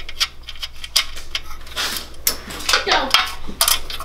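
Light, irregular metallic clicking and clinking as hands work a ground wire and its small fastener loose on a small go-kart engine.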